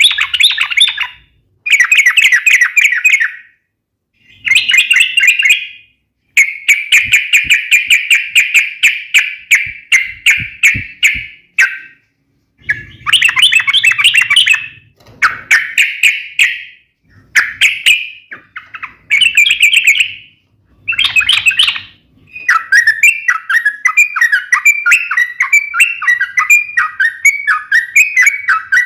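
Yellow-vented bulbul (trucuk) singing loud, rapid chattering trills in bursts of one to three seconds with short gaps between them. About three quarters of the way through, the bursts give way to a continuous warbling chatter.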